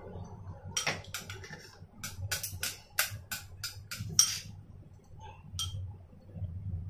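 Wooden chopsticks clicking against a ceramic bowl as food is picked from it: a quick run of about a dozen light clicks, mostly in the first four seconds.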